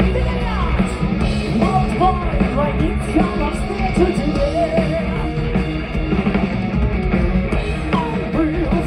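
Heavy metal band playing live through a PA, with distorted electric guitars, bass and drums and a melody line sliding up and down in pitch over the dense band sound.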